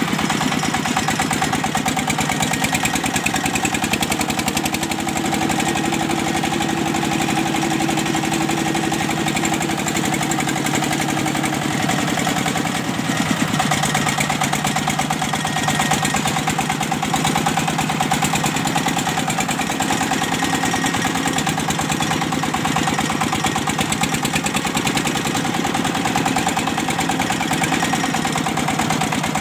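Single-cylinder diesel engine of a công nông farm truck running steadily while the truck drives, a fast, even chugging. Its note wavers slightly around the middle.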